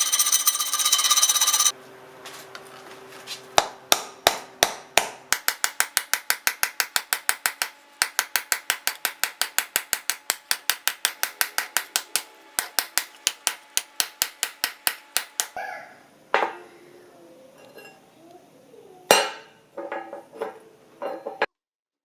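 A loud power tool running stops about two seconds in. After a short pause come rapid, evenly spaced light hammer taps on metal, about four a second, for some twelve seconds, then a few scattered knocks.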